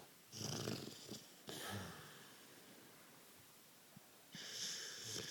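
Dog snoring in deep sleep: a snoring breath in and out, a pause of about two seconds, then the next snore starting near the end.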